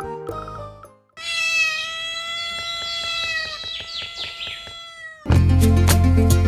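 A domestic cat's single long meow lasting about four seconds, added as a sound effect. Music stops just before it and comes back loud near the end.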